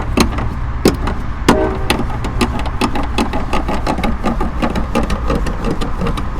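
Car jack being cranked down to lower the car: a quick run of small metallic clicks, about five a second, with a few louder knocks in the first second and a half, over a steady low rumble.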